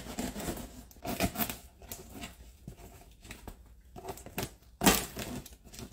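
Knife blade slicing through packing tape on a large cardboard box, with short scraping and tearing strokes of tape and cardboard. A single sharp thump a little before five seconds in.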